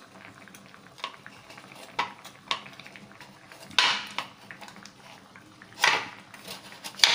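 Kitchen utensils clinking and scraping: a few light knocks, then three louder short clatters about four, six and seven seconds in.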